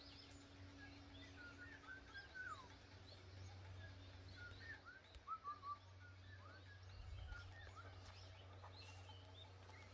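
Near silence: a low steady hum under many faint, short, scattered chirps.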